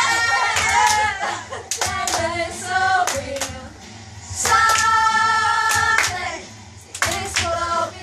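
A small group of girls and women singing along and clapping their hands in uneven claps. A long held sung note comes about four and a half seconds in.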